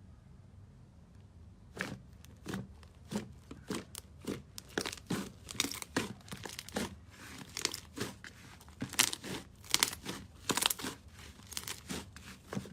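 Slime being pressed and worked by hand, giving irregular crackling pops and clicks, several a second, starting about two seconds in.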